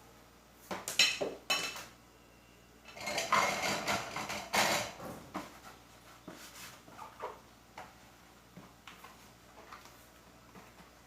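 Dishes and kitchenware clinking and clattering as they are handled: a few sharp knocks about a second in, a busier stretch of clatter from about three to five seconds, then lighter scattered clicks.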